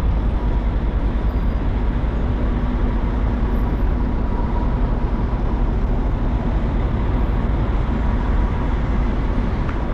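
Steady rumble of vehicles in slow, backed-up street traffic, with a heavy low-end drone and no sudden events.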